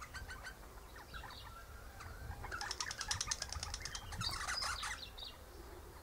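Eastern rosella chattering: scattered short chirps, then a fast run of high, rapidly repeated notes that builds about halfway through and trails off near the end.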